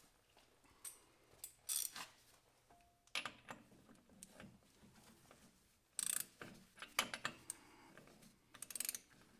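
Metal spanners clinking and clattering against a hydraulic fitting and each other in about six short bursts, as spanner sizes are tried on the fitting.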